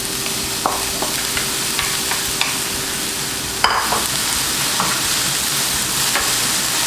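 Eggplant and chopped garlic sizzling in hot olive oil in a frying pan, with scattered clicks of a utensil stirring against the pan and one louder knock a little past halfway.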